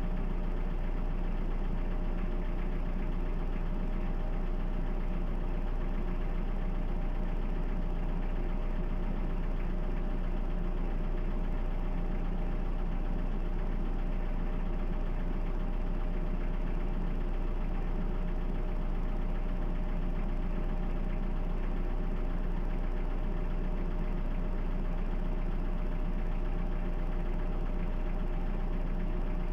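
Toyota 2C diesel engine idling steadily, a four-cylinder diesel running with its typical knock.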